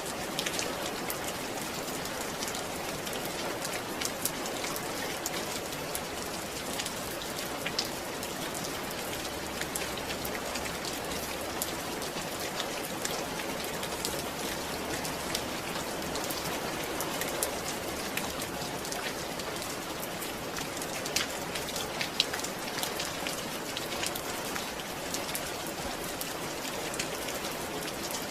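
Steady rainfall, a constant hiss with many individual drops ticking on a surface.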